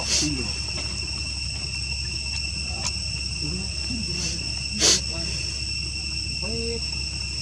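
Steady, high-pitched drone of insects, with a few short, low calls scattered through it. A brief, loud, noisy burst comes about five seconds in.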